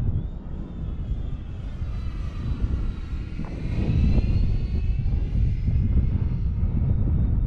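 Radio-controlled Airbus A320 model jet making a pass: its engine whine swells to a peak about four seconds in and drops in pitch as it goes by, with wind buffeting the microphone throughout.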